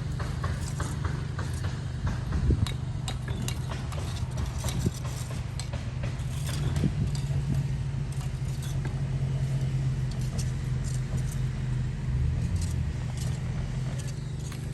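An engine running steadily at a constant pitch, with many scattered metallic clicks and clinks over it and a couple of louder knocks.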